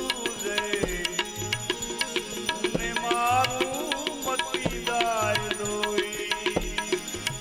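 Bhajan music: tabla beating a steady rhythm under a melody that bends in pitch.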